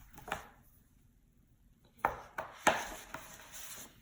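A soft knock, then after a pause a few sharp knocks or clatters about two seconds in, trailing off into a rustle.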